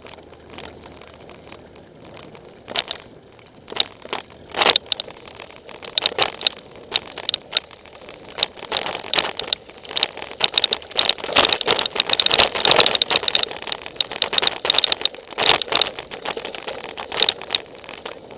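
Mountain bike rolling downhill over gravel and rocky dirt, its tyres crunching and the bike rattling in quick clatters over the bumps. The clatter starts sparse and thickens from about three seconds in, busiest in the middle stretch.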